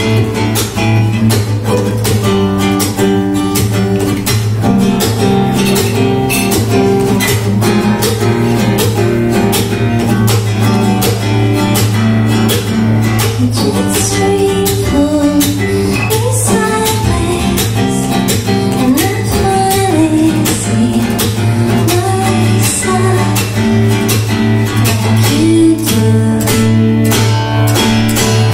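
Acoustic guitar with a capo, played in a steady rhythm of dense strokes under sustained chords.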